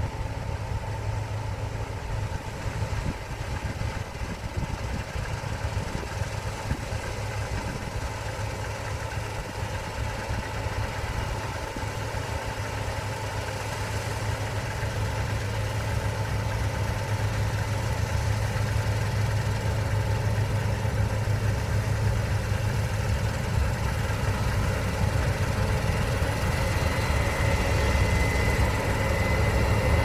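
Combine harvester running while it cuts barley, a steady engine and machinery drone that grows louder as the machine comes closer.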